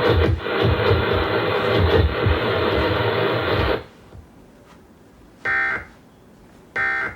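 Broadcast audio from a radio or TV speaker, dense and noisy, cutting off suddenly about four seconds in. Then two short buzzy electronic beeps follow, about a second and a quarter apart, near the end.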